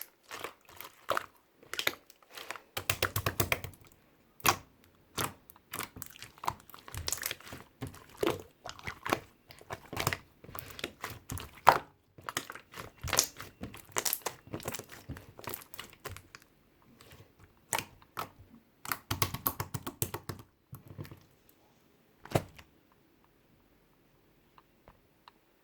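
Irregular crinkling and crackling with many sharp little clicks, as of something crisp being handled close up. It stops about 22 seconds in.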